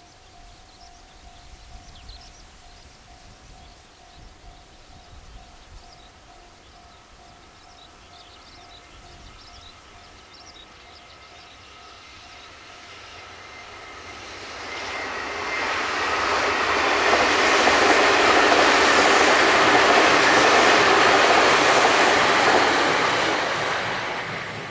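JR Central 383 series electric multiple-unit train passing on the line: the rush of its wheels and running gear builds from about halfway, holds loud for several seconds, then fades near the end.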